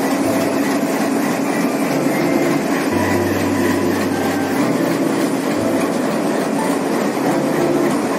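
A train running along the track: a steady rumble with a constant low hum.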